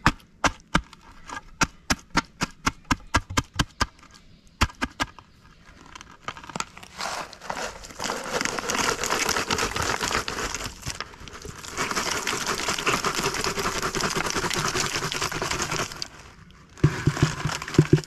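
A run of sharp clicks and taps, about three or four a second, then a long rustling hiss of a dry granular mix poured from a plastic tub into a hole around a wooden post. A few dull knocks come near the end.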